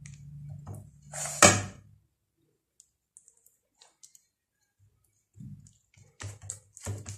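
Hands laying a thin, buttered sheet of feteer dough onto the stack in a metal baking tray and pressing it down. Scattered light taps and clicks, a louder knock about a second and a half in, and a few soft pats near the end.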